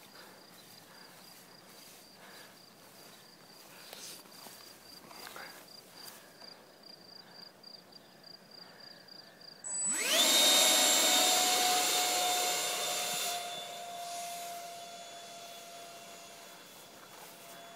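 Electric ducted fan of a HobbyKing F-18 model jet spooling up hard about ten seconds in, a sudden rising whine, then a steady high whine that fades as the jet climbs away after the hand launch. Before it, crickets chirp faintly with a steady pulsing tone.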